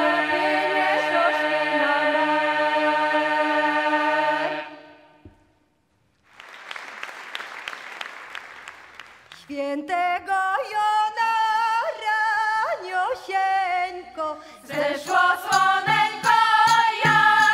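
Women's vocal ensemble singing a held chord in close harmony over a low drone. It cuts off after about four and a half seconds, then after a short silence and a stretch of noise the voices start again in a livelier line punctuated by sharp taps, growing louder near the end.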